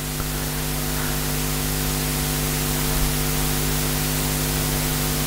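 Steady hiss with a low electrical hum underneath: the background noise of the recording, with no speech.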